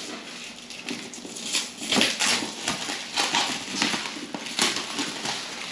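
Cardboard packaging rustling and scraping in irregular bursts as a sealed box is handled and its seal torn open.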